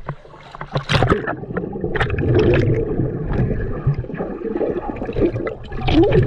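Seawater splashing and sloshing close to the microphone, an uneven churning with short splashes.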